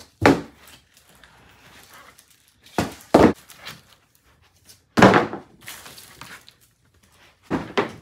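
Thick cardboard packaging being pulled off a boxed mini fridge: about five separate thuds and scrapes of cardboard, the loudest about five seconds in.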